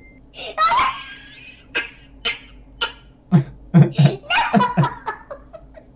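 A man laughing: breathy exhalations and snorts, then a run of short voiced "ha" pulses in the middle.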